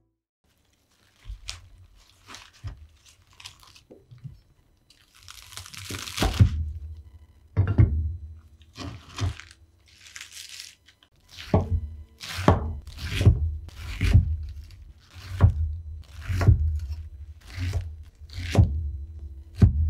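Fresh herbs being torn and rustled by hand, with stems crunching, then a kitchen knife chopping the greens on a wooden cutting board in regular strokes, about three every two seconds, from about halfway through.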